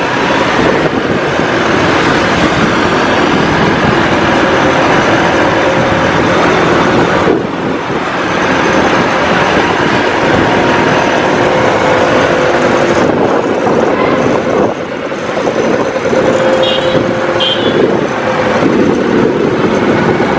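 Loud motorcycle engine running on the move, with traffic and wind noise, easing off briefly about seven seconds in and again near fifteen seconds.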